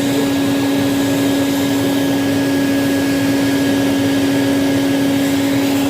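Wet/dry vacuum running steadily with a constant hum, drawing out the water still standing in a slow-draining washer.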